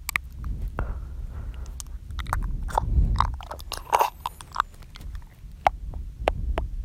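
Close-miked ASMR mouth sounds: wet tongue and lip clicks and smacks in quick, irregular succession, with soft breathing between them.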